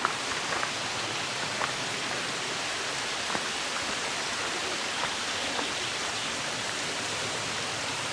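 Steady, even rush of a mountain stream and waterfall in a rocky gorge, with a few faint clicks over it.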